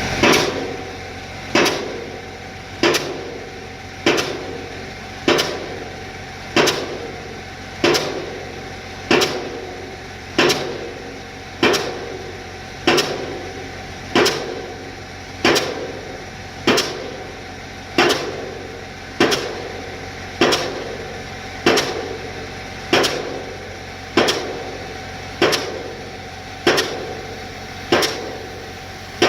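Pile hammer on a Manitowoc 222 crawler crane driving a pile, striking at a steady pace of about one blow every 1.25 seconds, each blow dying away before the next, over a steady engine drone.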